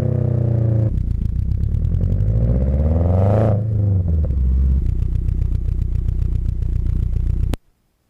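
Exhaust of a Subaru WRX's turbocharged flat-four, fitted with an Invidia G200 cat-back and a catless bellmouth downpipe, recorded from a microphone taped to the rear bumper. The engine note falls, then climbs for a couple of seconds as it revs up, drops back, and settles into a steady low pulsing burble. It cuts off abruptly near the end.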